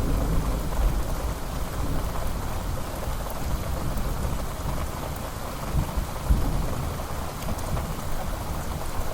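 Thunderstorm: steady rain falling with low rolling thunder, the rumble strongest at the start and slowly easing off, with two short low swells about six seconds in.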